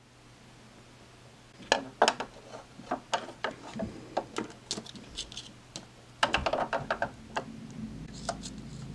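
Light, irregular clicks and taps of hard plastic from Littlest Pet Shop toy figures being handled and moved on a plastic playset, over a steady low hum. The clicks start about two seconds in and bunch together a little past the middle.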